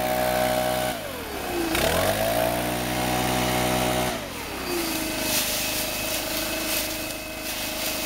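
STIHL BR 600 backpack blower's 4-MIX engine running at high throttle, easing off about a second in and revving back up, then dropping to a lower steady speed about halfway through. Sharp crackles sound over the last few seconds.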